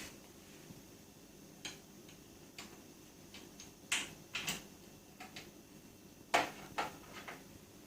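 Scattered clicks and knocks of hand tools and fixings being worked while a plastic number board is fitted to a mini bike, loudest a little past the middle.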